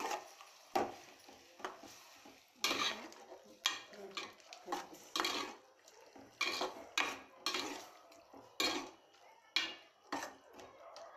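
A metal ladle stirring a wet goat-intestine curry in a metal pot, in irregular strokes about one to two a second. Each stroke scrapes and knocks metal on metal, with a wet slosh.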